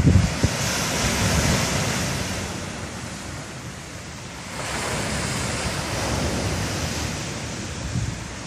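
Sea waves washing onto the shore in two surges, one fading after the first couple of seconds and another swelling about four and a half seconds in, with some wind on the microphone.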